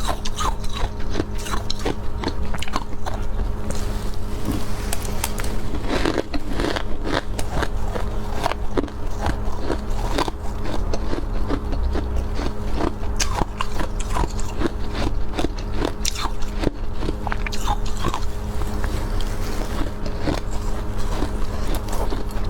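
Close-miked biting and chewing of soft, powdery freezer frost: a continuous, irregular run of crunches.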